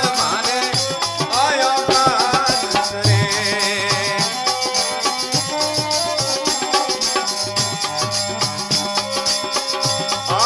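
Rajasthani devotional folk music from a chirja: hand drums and jingling rattle-like percussion keep a steady beat under held tones, with a gliding melodic line in the first couple of seconds.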